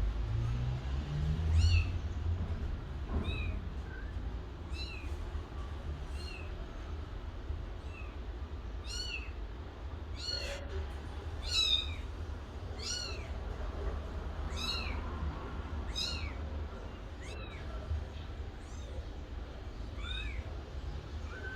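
Kitten meowing again and again: short, high-pitched mews that rise and fall, about one every second or so, over a low steady rumble.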